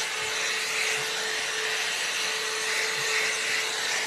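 Hot-air brush (round blow-dryer brush) running steadily as it is drawn through hair: a constant rush of blown air over a steady motor hum.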